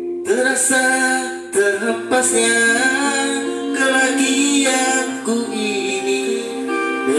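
A man singing a Malay pop ballad karaoke-style into a microphone over a backing track, both amplified through a Baretone MAX15MHWR 15-inch portable active speaker.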